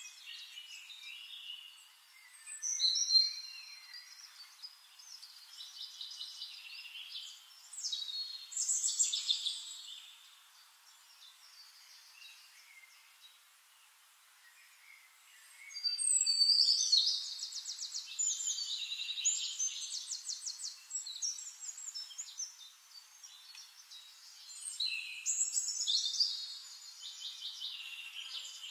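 Songbirds singing in separate phrases of quick high chirps and rapid trills with pauses between, the longest trilling phrase a little past the middle.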